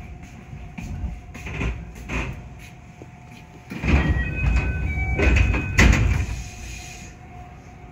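A 221 series train's sliding doors closing, with a short run of chime tones and a loud knock as the doors shut, over the train's low steady hum.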